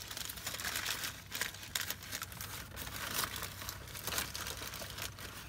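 Paper sandwich wrapper being unfolded by hand, crinkling and rustling in a continuous run of quick, sharp crackles.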